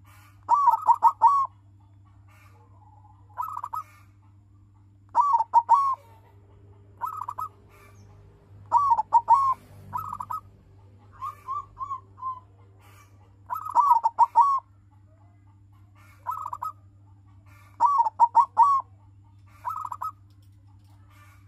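Silver-coloured zebra dove (perkutut) cooing its song, short phrases of three or four quick notes repeated every second or two. This is the male's song, played as a lure to stir other perkutut into cooing.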